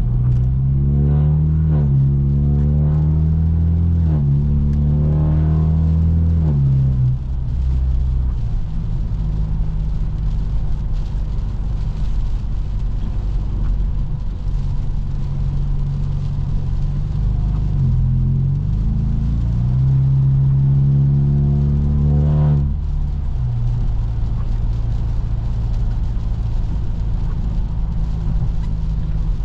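Straight-piped BMW F30 328i's turbocharged four-cylinder pulling hard through the gears, its pitch climbing and dropping back at each upshift over the first seven seconds, then settling to a steady low drone while cruising. A second pull starts about eighteen seconds in and ends with another drop at the shift, back to a steady cruise.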